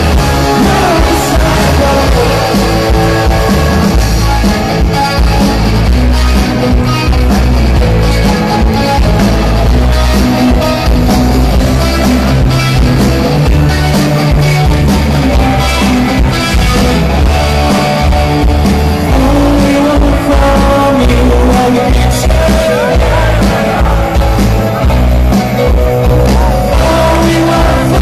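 A rock band playing live at full volume, with electric guitars, bass and drums, heard from within the concert audience.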